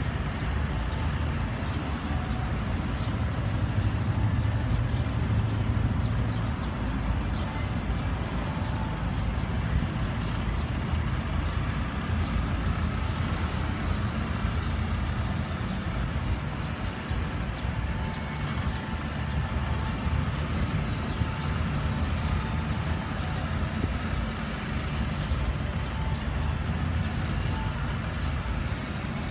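Harley-Davidson motorcycle engines running with a steady low rumble, briefly louder about four seconds in.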